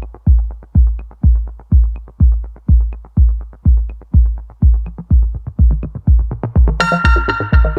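Electronic dance music with a heavy kick drum about twice a second. Near the end a cymbal crash and synth chords come in over the beat.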